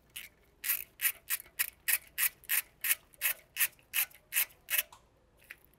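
Hand ratchet clicking about three times a second as it backs out the T30 Torx set screw that holds a brake rotor to the hub. The clicking stops about five seconds in.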